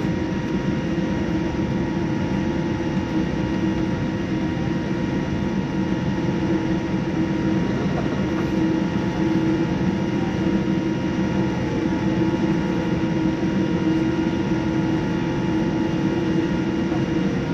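Steady cabin noise inside a Boeing 787-9 on the ground with its engines at idle: an even rush with a constant low hum and several thin steady tones above it.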